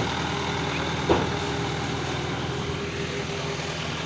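Heavy vehicle's engine running steadily at idle, with a short knock about a second in.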